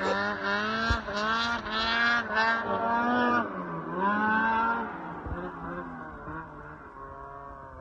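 Ski-Doo 850 two-stroke snowmobile engine running at high revs, its pitch wavering in several throttle surges, then easing off to a quieter, slightly lower drone for the last few seconds.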